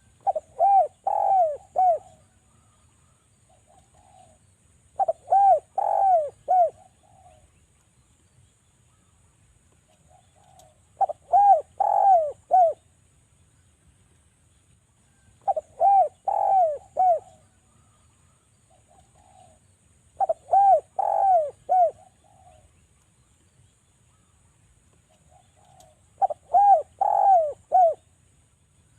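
Derkuku (spotted dove) cooing: six rhythmic phrases of three or four coos each, one phrase about every five seconds. It is a calling dove used as a lure to draw other derkuku into answering.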